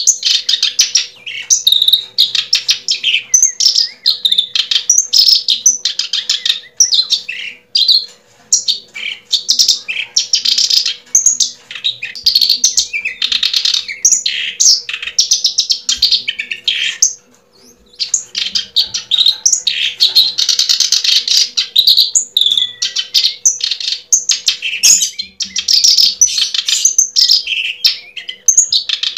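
Small birds chirping and twittering rapidly and almost without pause, with a short break about two-thirds of the way through.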